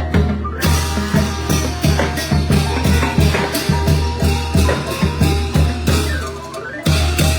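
Thai brass band (trae wong) playing a lively tune over drums that keep a steady beat.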